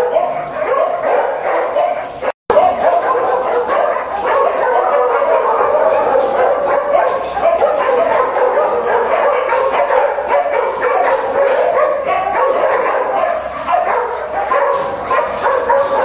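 Many kennelled dogs barking and yipping at once, a loud unbroken chorus of overlapping barks, with a brief silent cut about two seconds in.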